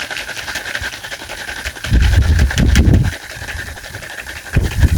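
Shaker bottle of water and powdered energy-drink mix being shaken hard, the liquid sloshing and rattling against the lid and the strainer inside, with two louder spells of shaking.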